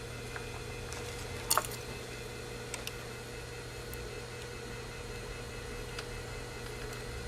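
A sharp metallic clink about a second and a half in, then a few faint ticks, from small metal parts and tools being handled while the feed dogs are fitted to a sewing machine. A steady low hum runs underneath.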